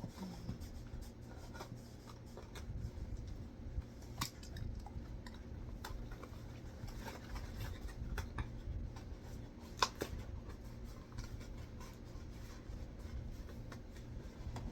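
A dog chewing a chicken nugget: scattered soft clicks and wet smacks, with a sharper click about 4 seconds in and another near 10 seconds.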